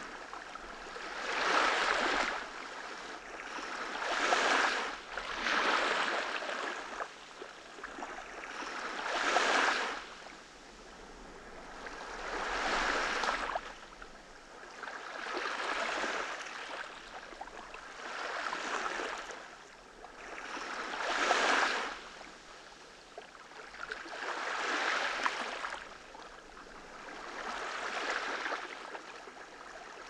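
Small, gentle waves washing onto a sandy beach, each wash swelling up and fading away again, about ten of them, every two to four seconds.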